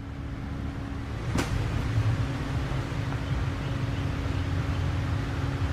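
Steady low hum and rumble of background noise, with one short click about a second and a half in.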